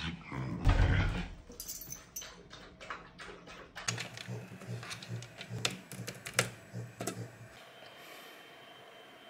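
Keys jangling and handling sounds in the first few seconds, then irregular clicks of typing on a compact keyboard. Near the end the clicks stop, leaving a faint steady hum.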